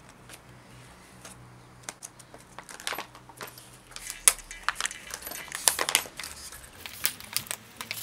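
Plastic blister packaging being pulled and torn open by hand to free a padlock: a run of sharp crinkles and clicks, starting about two seconds in and thickest near the end.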